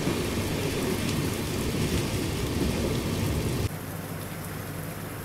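Heavy monsoon rain heard from a moving train: a dense, steady hiss with a low rumble underneath. About three and a half seconds in it drops suddenly to a quieter hiss.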